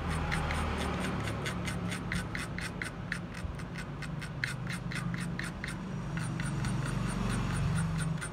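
Rapid rubbing strokes, about five a second, over a steady low hum.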